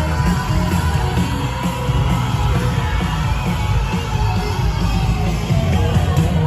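Loud rock music with singing.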